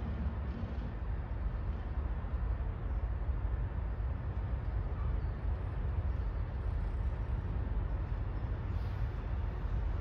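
Steady low rumble of urban outdoor background noise.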